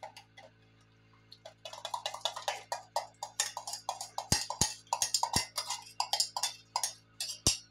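A utensil clinking and scraping against a steel bowl as beaten egg is worked out of it into a pan. The quick, uneven run of taps starts about a second and a half in, with a few sharper knocks among them.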